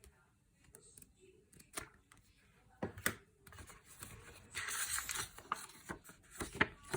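Packaging being handled: a few sharp clicks and knocks, then a short stretch of rustling and tearing about two-thirds of the way in, and more clicks near the end.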